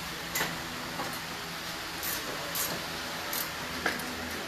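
A steady background hiss with about six short, sharp metallic clicks and clinks scattered through it, the sharpest near the end. These are hand tools and fasteners being worked on a front coilover strut as it is bolted back in.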